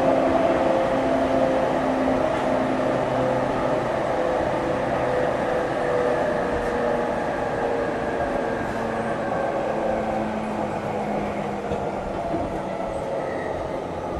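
Running sound inside motor car MoHa E231-901 of the E231-900 series prototype EMU: the whine of its Hitachi fourth-generation IGBT-VVVF inverter and traction motors, several steady tones over wheel and track rumble. The tones slowly fall in pitch.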